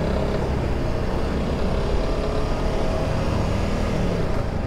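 Honda CRF300 Rally's single-cylinder engine running steadily while riding slowly through town streets, at about 22 km/h.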